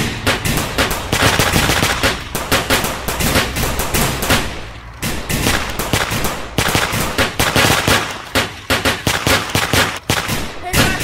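Gunfire sound effects: rapid machine-gun bursts, many shots in quick succession, easing briefly about four and a half seconds in before picking up again.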